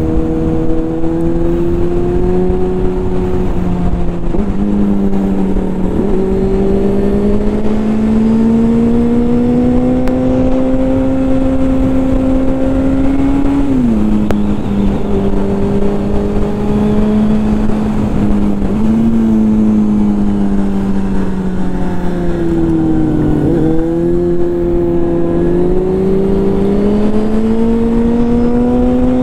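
Yamaha FZ6's 600 cc inline-four engine running under way over a steady rush of wind noise. Its pitch climbs slowly through the gears, drops sharply about halfway through at an upshift, then steps up, dips and rises again.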